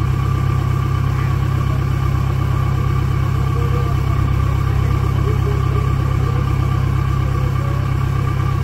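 Off-road 4x4 engine idling steadily, a continuous low rumble with no change in speed.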